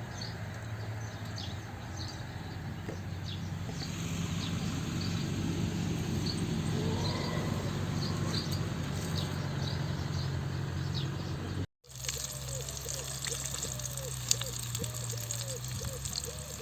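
Small birds chirping over a steady low hum and background noise; after an abrupt cut, a quick run of short repeated rising-and-falling tones.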